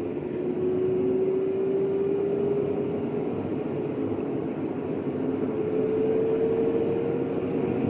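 Car driving, heard from inside the cabin: steady engine and road noise, with a hum that rises slowly in pitch.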